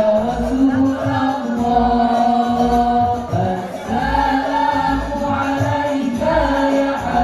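Al Banjari ensemble performing a sholawat: voices sing a melody in long held notes over the repeated low beat of hand frame drums (rebana/terbang).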